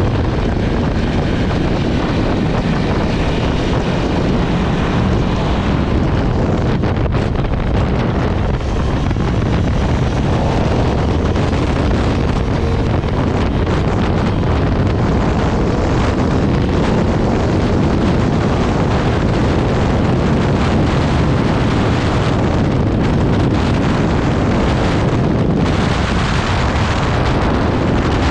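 Heavy wind noise buffeting the onboard microphone at track speed. Under it, the Aprilia RSV4 RF's V4 engine pulls hard, its pitch rising and falling with the revs through the gears.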